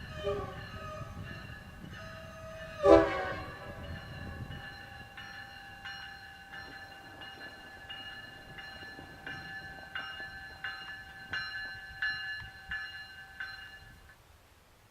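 Multi-chime locomotive air horn sounding on compressed air: a sudden loud pop about three seconds in, then a chord of several steady notes held for about eleven seconds, swelling roughly every 0.7 seconds and cutting off near the end.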